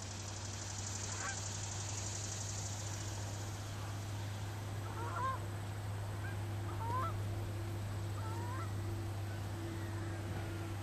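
Dyn-E-Max electric ducted fan of a model jet whining high and faint, fading away over the first few seconds, over a steady low hum. From about halfway through come several short bird calls, the loudest sounds here.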